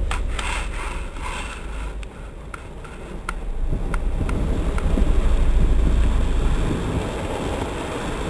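A 4WD's engine running under load as it drags a fallen tree trunk along a dirt track on a tow strap, with the log scraping over leaf litter and a few sharp cracks in the first half. A low rumble swells toward the middle.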